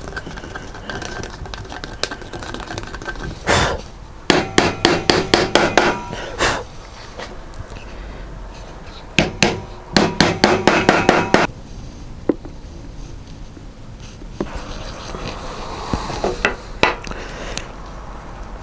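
Wooden parts being tapped together with a hammer or mallet during a dowelled glue-up: a single knock, then two runs of quick, even taps, each lasting about two seconds.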